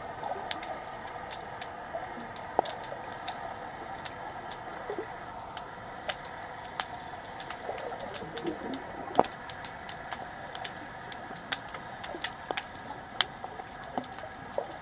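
Underwater sound through a GoPro's waterproof housing: many irregular sharp clicks and ticks over a steady hum and hiss, about two or three clicks a second at uneven spacing.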